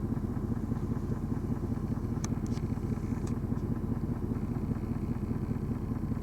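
A vehicle engine idling steadily with a low, even rumble, with a few faint ticks a couple of seconds in.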